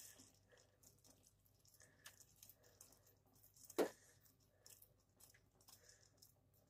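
Metal tongs turning sauce-coated fried fish in a pan: faint soft squishing and small clicks, with one sharper clack about four seconds in.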